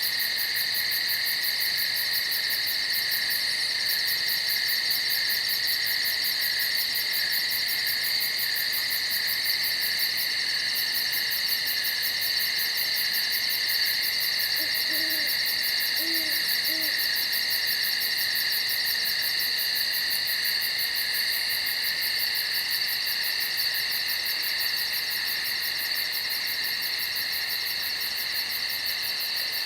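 Steady high-pitched chorus of night insects, with an owl hooting three short low notes about halfway through.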